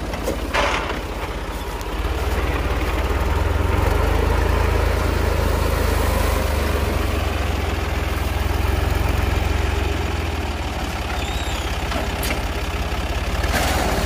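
Al Ghazi 65 hp diesel tractor engine running steadily while powering a wheat reaper, with a deep, even note; it gets louder about two seconds in as it takes up the work.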